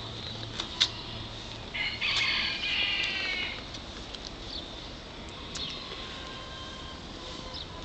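One drawn-out animal call of about a second and a half, starting about two seconds in, with faint chirps and clicks around it.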